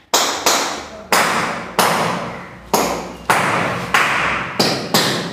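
Hammering from construction work: about nine sharp blows at an uneven pace, each with a long fading tail.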